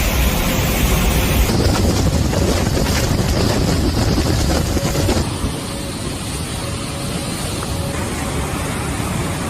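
Strong wind buffeting the microphone over rushing sea water, as on a boat in heavy seas. The sound changes abruptly about a second and a half in and again about five seconds in.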